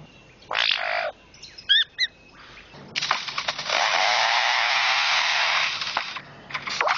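Male lyrebird mimicking foresters' chainsaws. There is a short rasping burst about half a second in, then a few brief whistled notes, then a long steady rasping buzz from about three seconds in to about six.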